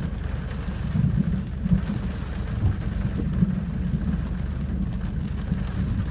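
Thunder rumbling low and long after a nearby lightning strike, with rain falling, heard from inside a car through a partly opened window.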